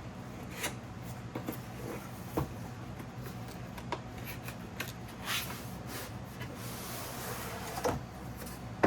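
Hands rummaging through a cardboard packing box: scattered light knocks and taps, with longer rustling of packing materials about five seconds in and again near the end.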